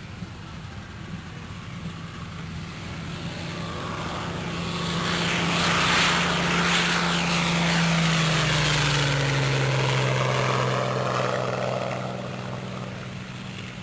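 Hawker Hurricane's Merlin V12 engine at full power on its takeoff run and climb-out, swelling as the fighter lifts off and passes low, dropping in pitch about two-thirds of the way through as it goes by, then fading as it climbs away.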